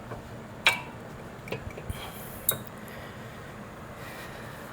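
A few sharp metallic clinks as tools and brake parts are handled: the loudest about two-thirds of a second in, a few lighter taps around a second and a half, and another clink about two and a half seconds in.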